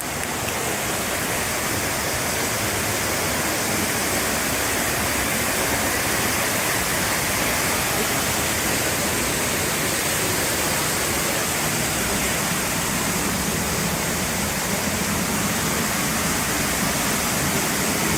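Waterfall rushing steadily: an even hiss of falling water with no breaks.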